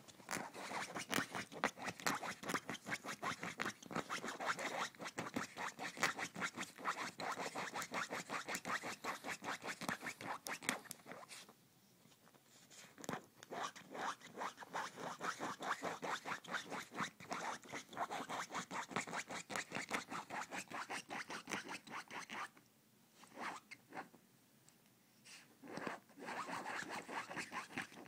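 Dog scratching at couch upholstery with its paws in a fast run of rasping, zipper-like strokes, many a second. It stops briefly about twelve seconds in and twice more near the end.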